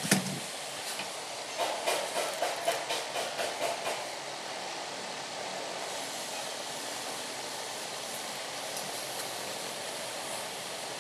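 Hand tools being handled on wooden planks while marking out timber: a sharp click at the start, then a quick run of about nine knocks and scrapes over two seconds, followed by a steady background hiss.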